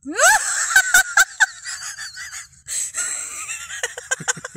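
A woman laughing hard: a rising squeal at the start, then wheezy, breathy laughter, breaking into a quick run of short bursts near the end.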